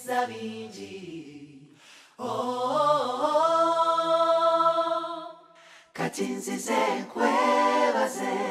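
Unaccompanied singing with no instruments, holding one long note in the middle, with short pauses before and after it.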